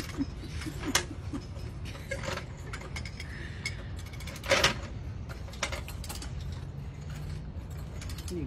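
Scattered metal clicks and creaks from a Daytona floor jack being worked by its handle, with a sharp clack about four and a half seconds in, over a low steady hum.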